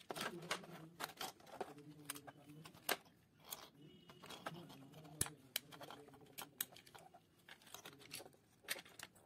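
Irregular plastic clicks and rattles as a toy coin bank's small plastic gearbox is handled and its gears are pulled apart by hand.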